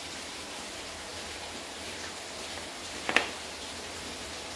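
Steady hiss of rain in the background, with one sharp click a little over three seconds in that fits the helmet's visor being flipped up.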